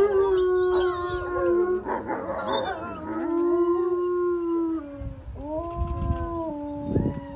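A group of gray wolves howling in chorus: several long, steady howls at different pitches overlap. About two seconds in they break into a brief jumble of yips before the howling picks up again.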